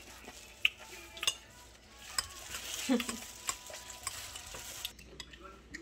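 Thin disposable plastic glove crinkling and rustling as a gloved hand handles cut octopus pieces on a ceramic plate, with a few light sharp taps in the first couple of seconds. The crinkling stops suddenly about five seconds in.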